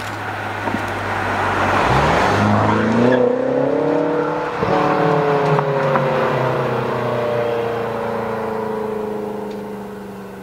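BMW F13 M6 coupe's twin-turbo V8 accelerating hard: a steady hum, then the engine note climbs steeply about two seconds in and stays loud, with a brief break about halfway through, before it holds and slowly drops in pitch and fades as the car pulls away.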